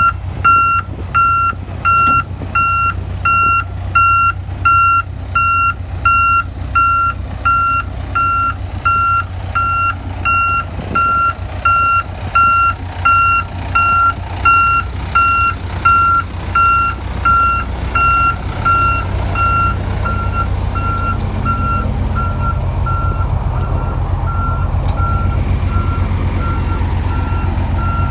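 Truck reversing alarm beeping evenly, about three beeps every two seconds, over the truck's running engine. The signal is that the truck is backing up. In the second half the beeps grow fainter while the engine gets louder.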